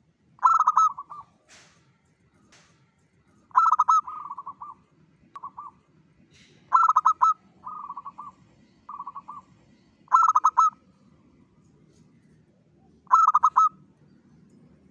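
Local zebra dove (perkutut) cooing: five loud phrases of quick staccato notes about three seconds apart. Several phrases are followed by softer, shorter trailing notes.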